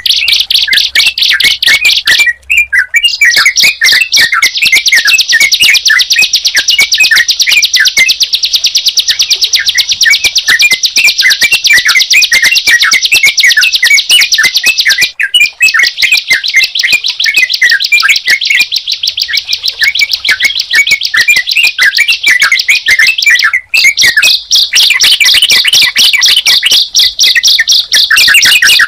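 Ciblek (bar-winged prinia) and trucukan (yellow-vented bulbul) singing together: a fast, unbroken high-pitched trill of rapidly repeated notes, with chirping notes just below it. The trill breaks off briefly about 2.5 s in, halfway through and near the end.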